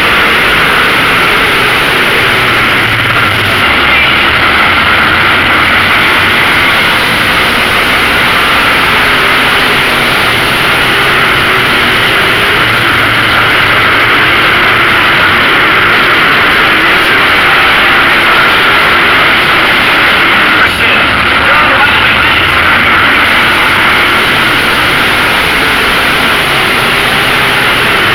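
Late model race cars racing on a track, their engines making a loud, steady, continuous noise.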